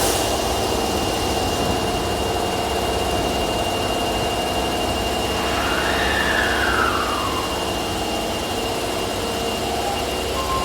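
Osaka Metro 22 series subway train at the station: a steady mechanical hum with a constant high whine, and a short whine that rises and then falls about six seconds in.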